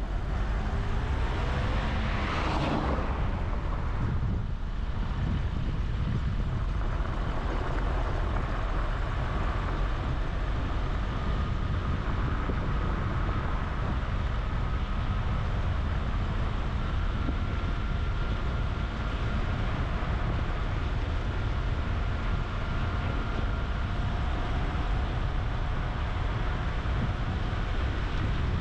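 A vehicle driving at a steady pace: low road and wind rumble, with a brief whoosh about two and a half seconds in.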